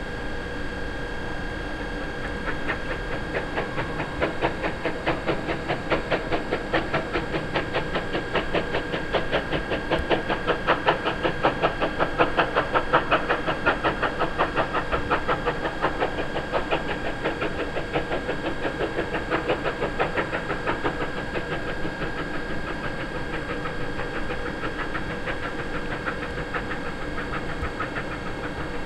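Steam locomotive pulling a train away, its exhaust beats coming in a quick, even rhythm that grows louder, peaks in the middle and eases off toward the end, with steam hissing underneath.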